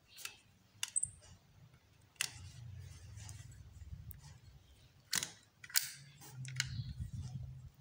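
Scattered metal clicks from a metal-bodied manual staple gun as the wire loop locking its handle is worked free, with the sharpest click about five seconds in as the spring-loaded handle is released and swings open.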